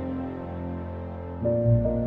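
Soft background music: sustained piano-like chords, with a new chord and a deep bass note coming in about one and a half seconds in.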